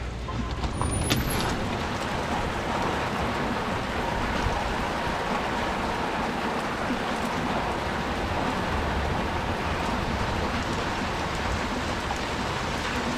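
Window air conditioner running: a steady rush of fan and airflow noise with a faint steady hum, and one short click about a second in.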